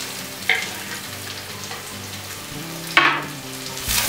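Chopped garlic and chili flakes sizzling in hot olive oil in a stainless steel frying pan. About three seconds in there is a sharp clatter, and near the end the sizzle grows louder as sliced onions go into the oil.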